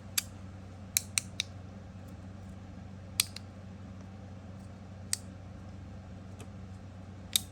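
Plastic 3D-printed magnetic fidget slider clicking as its strong magnets snap the pieces into place: about seven sharp clicks at uneven intervals, three or four in the first second and a half, then single clicks every couple of seconds.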